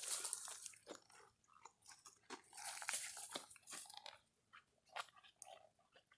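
Faint, irregular crunching and rustling with crisp clicks, densest in the first second and again in the middle.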